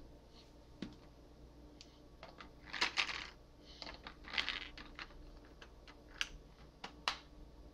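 AA batteries clicking and rattling against the plastic battery compartment of an instant camera as they are slotted in, in short irregular bursts, with two sharp single clicks near the end.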